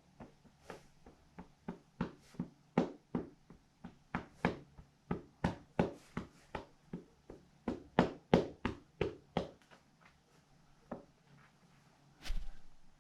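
Slime worked by hand, giving a quick run of short, sharp wet pops, about two to three a second, that thin out after about nine and a half seconds, then one louder, longer squelch near the end.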